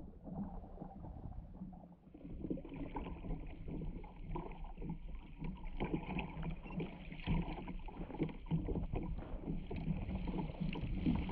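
Water sloshing against a plastic fishing kayak's hull, with wind. From about two seconds in, a fishing reel clicks rapidly and keeps up a high buzz as the line is pulled hard against it, to snap the leader off a hooked shark.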